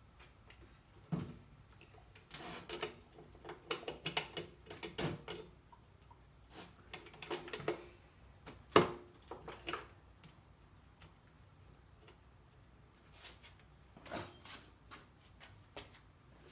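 Hand tools and small parts clicking, knocking and clattering as the spark plug is taken out of a small engine, with the sharpest knock about nine seconds in.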